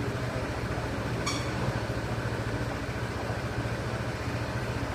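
Honda PCX 160 scooter's single-cylinder engine idling steadily with an even low pulse. A short click comes about a second in.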